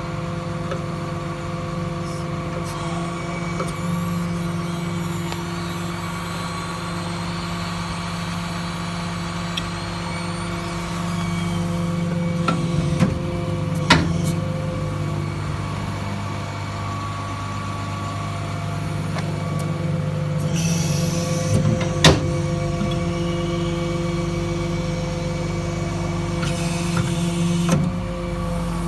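International DuraStar 4300 diesel truck engine idling steadily, with two sharp knocks, one about halfway through and one about three-quarters of the way in.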